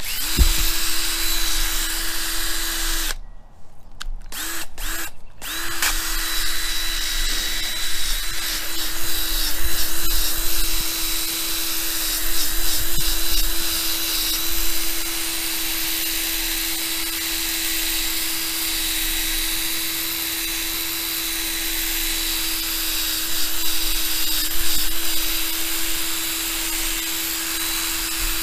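Electric drill spinning a fine abrasive disc from a 3M headlight restoration kit against a plastic motorcycle windscreen, at the stage of buffing out the deeper scratches left by the coarser first pad. It runs at a steady speed, stops about three seconds in, is restarted with a few short bursts, then runs steadily again.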